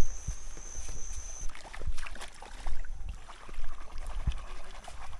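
Footsteps walking on a sandy path, with dull, uneven thumps about once a second. A thin, steady high tone is heard at the start and stops about one and a half seconds in.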